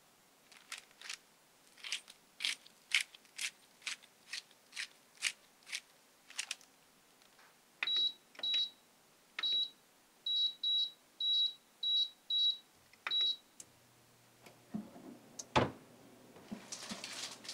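Light taps of shredded mozzarella being scattered onto a tortilla on parchment paper, about two a second. Then an air fryer oven's control buttons are pressed, about nine short high beeps, while it is set to 180 °C for 10 minutes. Its fan starts with a low steady hum, and the door opens with a loud clunk and a rustle of parchment paper near the end.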